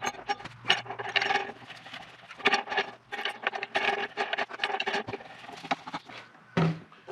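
Oak slabs knocking, sliding and scraping against each other as they are laid up and clamped for a glue-up, in a string of irregular clacks and rubs.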